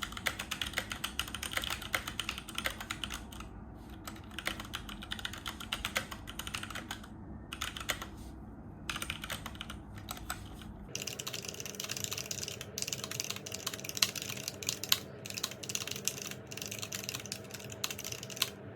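Typing on a Keychron K6 mechanical keyboard with Gateron Brown switches: a fast, continuous run of key clicks, broken by a few short pauses.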